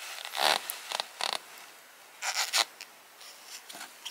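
A folded paper poster rustling and crinkling in gloved hands as it is unfolded and held flat, in about four short bursts.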